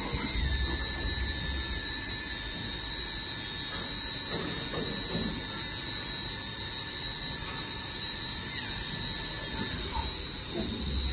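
Swiss-type CNC lathe running: a steady high whine over a continuous mechanical hum. A second, lower whine comes in just after the start and cuts off near the end.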